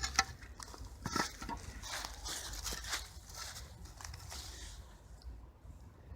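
Rustling and crackling of debris and undergrowth being handled close by, with a few sharp clicks and knocks, the loudest about a second in.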